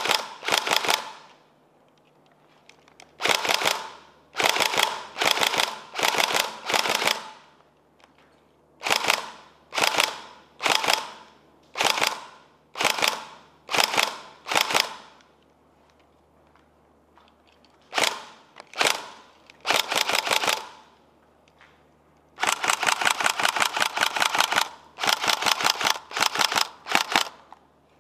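Tokyo Marui Next Gen SCAR-L airsoft electric gun firing full-auto in many short bursts of under a second, separated by brief pauses. Near the end come two longer bursts of about two seconds each.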